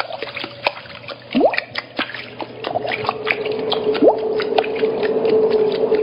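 Soundtrack of watery clicks and drips with quick upward-swooping, whale-like calls and a long held low tone that grows louder from about halfway through.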